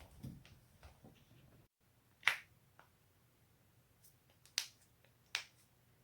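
Joints cracking with sharp, short pops. The loudest comes a little over two seconds in, and two more follow near the end, after a few fainter pops in the first second.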